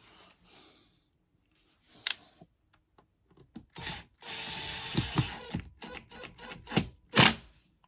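Screws being driven to fasten a guitar amp's back plate: a screwdriver working for about a second and a half in the middle, with clicks and knocks around it and one sharp knock near the end.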